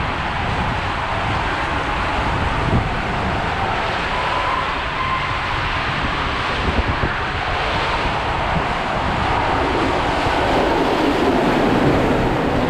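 Water rushing and a rider's body sliding through an enclosed water-slide tube: a loud, steady rushing rumble. It swells about ten seconds in as the rider shoots out into the run-out lane in a spray of water.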